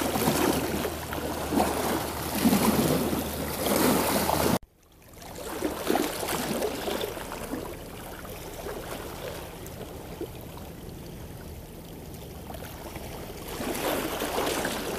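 Wind noise on the microphone and water sloshing around a fishing boat, with a steady low hum under it in the first few seconds. The sound cuts off abruptly about four and a half seconds in and comes back quieter without the hum, growing louder again near the end.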